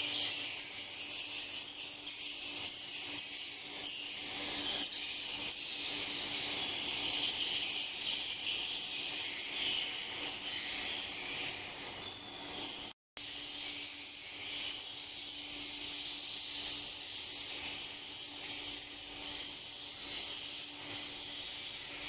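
Swiftlets chirping and twittering: a dense, high-pitched chatter with short repeated chirps standing out. It breaks off for an instant a little past halfway.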